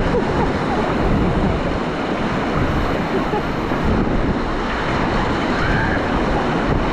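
Steady rush of river water during whitewater rafting, with wind buffeting the microphone.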